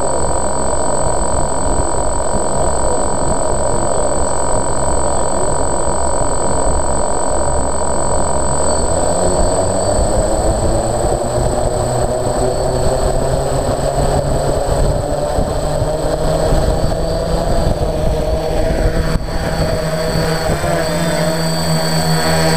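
Camera drone's electric motors and propellers running, heard from its onboard microphone, with a whine that rises steadily in pitch from about nine seconds in as the throttle is raised; the drone lifts off near the end.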